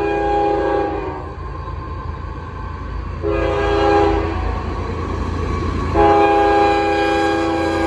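A locomotive's Nathan K5HL five-chime air horn sounding a chord in three blasts: one ending about a second in, a short one in the middle, and a long one starting near the end. A steady low train rumble runs underneath.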